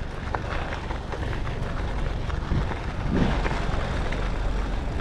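Steady wind rumble on the microphone together with bicycle tyres rolling over the gravel rail bed, as the bike is ridden along.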